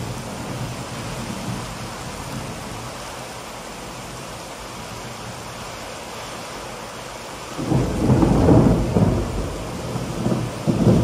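Steady rain falling, then a loud, low rumble of thunder about eight seconds in that rolls on for a couple of seconds, with another rumble starting at the very end.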